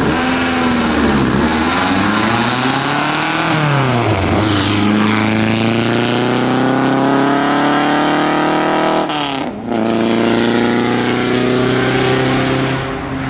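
1933 Riley Brooklands race car's four-cylinder engine accelerating hard from a standing start. The revs climb and drop twice in the first four seconds as it shifts up through the gears, then hold a steady high note as it pulls away, with a brief break about nine seconds in.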